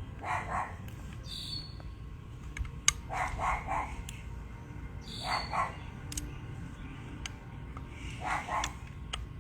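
A few sharp metallic clicks of AR-15 parts being fitted during reassembly, the loudest about three seconds in. Under them, an animal call repeats about every two and a half seconds.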